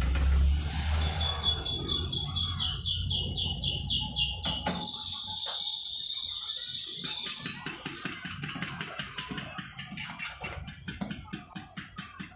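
Fork beating eggs in a white dish: rapid clinking strokes, about four or five a second, from a little past halfway. Before that a bird chirps with a fast high trill, then a held high note.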